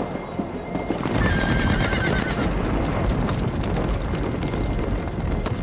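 Several horses galloping through snow, a dense rumble of hoofbeats, with a horse whinnying over it about a second in.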